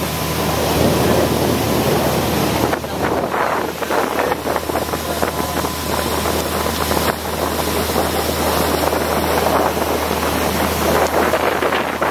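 Dive boat under way: its engine drones steadily, with wind buffeting the microphone and water rushing past the hull.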